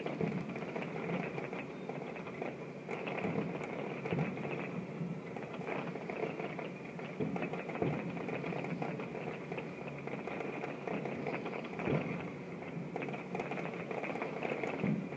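Aerial fireworks bursting in rapid succession: continuous crackling and popping, with louder bangs about eight and twelve seconds in.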